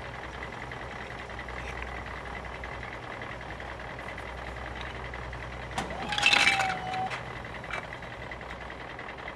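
A steady low engine-like rumble, with a short louder clatter about six seconds in as plastic Duplo bricks tip out of the toy dump truck's bed.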